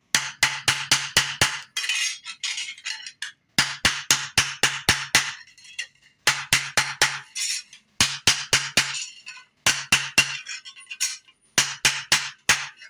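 Rapid hammer strikes on metal, in runs of six to eight quick blows separated by short pauses, as a silver buckle is domed.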